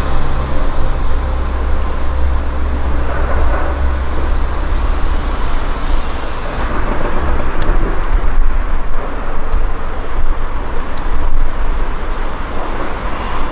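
Steady outdoor rumble and noise, heaviest in the low end, with a few faint clicks in the second half; no siren is sounding.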